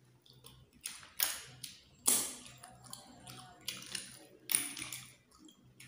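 Close-up eating sounds from snails cooked in coconut milk: a run of short, wet slurps and clicks, about half a dozen, as snail meat is picked from the shells and eaten and the shells are handled in the bowl. The loudest comes about two seconds in.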